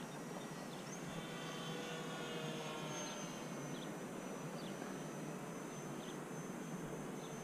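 Distant E-flite Air Tractor electric RC plane in flight: a faint electric motor and propeller drone that slides slowly down in pitch for a few seconds, with a thin high whine, over steady outdoor hiss and a few faint chirps.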